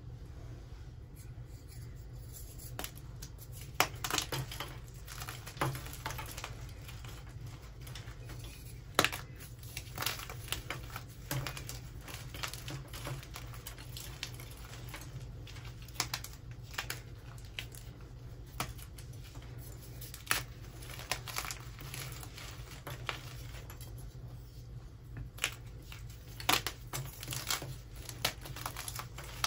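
Dyed Grit Grip gym chalk blocks soaked in baby oil, crushed and crumbled by hand: irregular crisp crunches and snaps, over a low steady hum.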